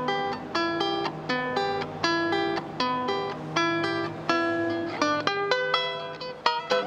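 Venezuelan cuatro, a small four-string guitar, strummed in a steady rhythm of chords.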